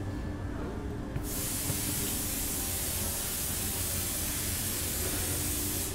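Compressed air hissing steadily from an air blow gun, starting abruptly about a second in and cutting off suddenly near the end, over a steady low workshop hum.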